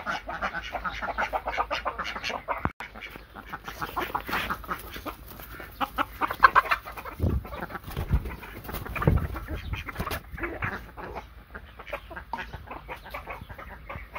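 Chickens clucking, many short calls overlapping, with a few low thumps about halfway through.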